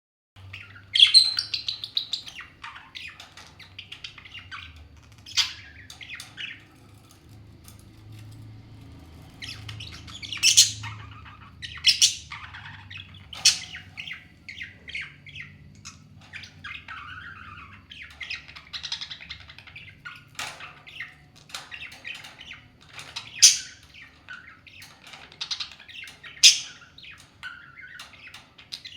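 Two pet parrots squawking and chirping back and forth in a squabble, with several sharp, loud squawks scattered among quieter chatter, over a faint low steady hum.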